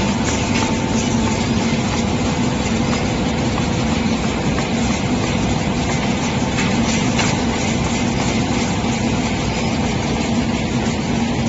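Automatic corrugated-carton production line (lead-edge feeder, two-colour printer, die cutter and folder gluer) running in production: a steady loud machine noise with a constant low hum.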